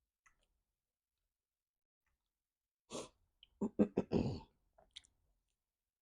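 A person's breath and throat sounds: a sharp breath about three seconds in, then a quick run of four or five loud short bursts from the throat.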